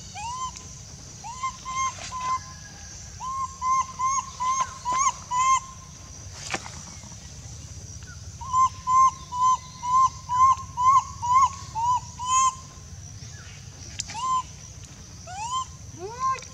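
Short whistle-like animal calls, each rising then falling in pitch, repeated two or three times a second in two long runs, with a few single calls near the end. A faint steady high hiss runs underneath.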